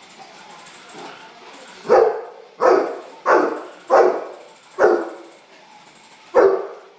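Large dog barking six times in playful excitement at a toy: the barks start about two seconds in, come in a quick run of four, and then two more spaced out near the end.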